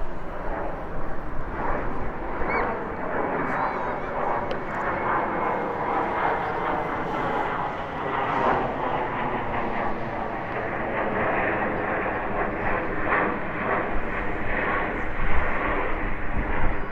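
Jet airliner engines running with a steady rush and a whining tone held through it.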